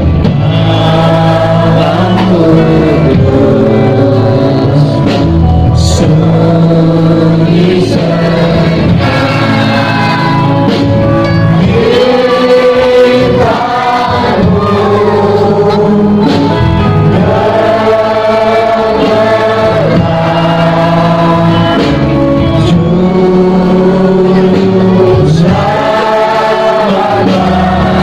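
Choir or congregation singing a Christian hymn with instrumental accompaniment, voices holding long sung notes over a steady bass.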